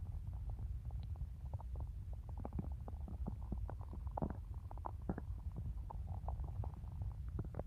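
A person's stomach growling: a steady low rumble with many quick gurgles and pops over it, and one longer, higher-pitched gurgle about four seconds in.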